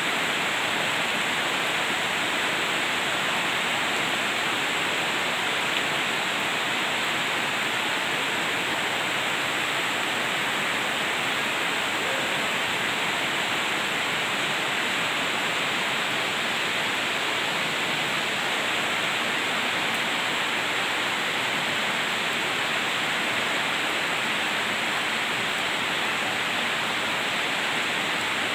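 Heavy rain falling in a steady, even hiss that does not let up.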